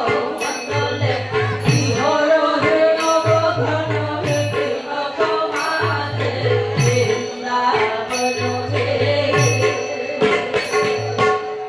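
Manipuri Raas Leela dance music: a drum beating a repeating pattern, with a bright metallic ring on the strokes and a melodic line over it.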